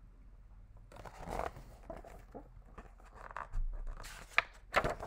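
Rustling and soft handling noises from a hardcover picture book being moved about and its page turned, with two sharp taps near the end.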